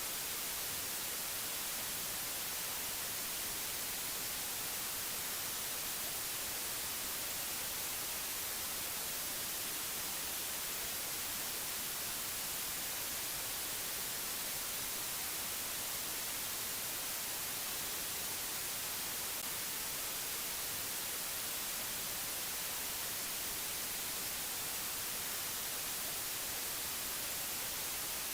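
Steady, unchanging white-noise hiss, brightest in the high treble, with no other sound in it.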